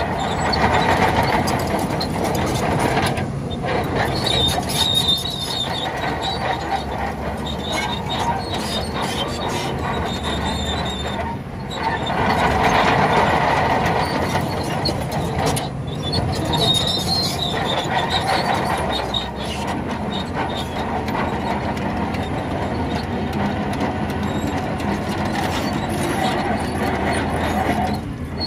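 Shantui crawler bulldozer working: its diesel engine runs steadily while the steel tracks squeal and clank, the high squeal coming and going several times.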